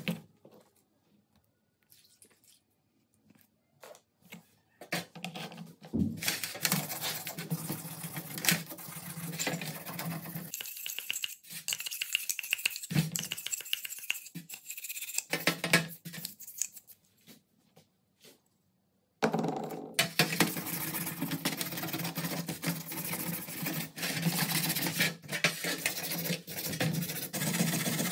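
Small stiff brush scrubbing a grimy metal gun part in a wet steel tray, with light clinks of metal against the tray. A few faint clicks first, then brisk scrubbing in stretches, a short pause about two-thirds through, then continuous scrubbing.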